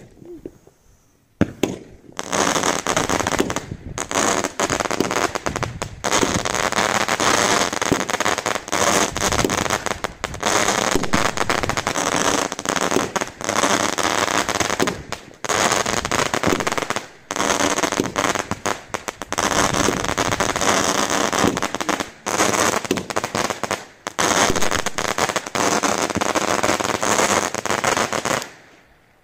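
Low-noise fireworks going off in a dense, continuous crackle broken by brief gaps. It starts about a second and a half in and stops shortly before the end.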